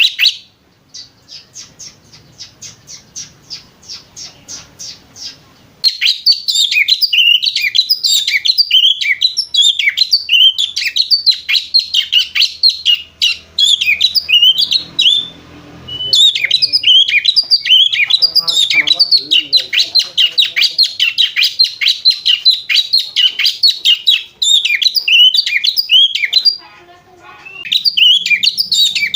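Oriental magpie-robin (kacer) chattering with a rapid, high twittering in the lovebird-like style known as ngriwik. It opens with a softer run of evenly spaced chirps at about four a second. About six seconds in, loud dense chattering starts and goes on in long bouts, broken by two short pauses.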